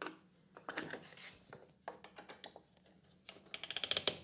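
Light clicks, taps and scraping from hand-tightening a router table fence, metal and plastic parts being handled. Near the end comes a quick run of rapid clicks.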